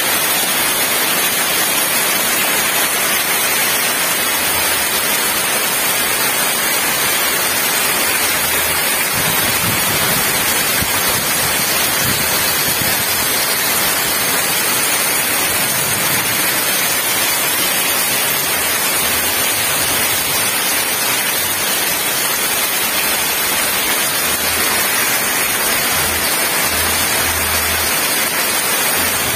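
Heavy downpour: a loud, steady hiss of rain on a paved courtyard and roofs, with runoff pouring off the eaves.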